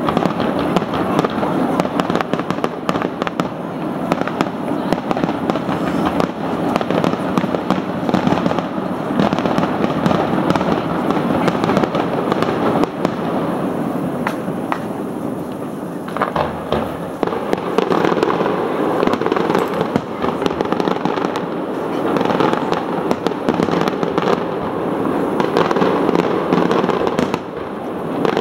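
A fireworks display: a continuous, dense run of bangs and crackling as many shells burst close together, with no break.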